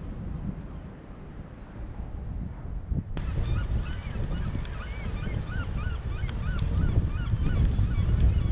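Wind rumbling on the microphone; about three seconds in, a flock of geese starts calling over it, many short calls a second.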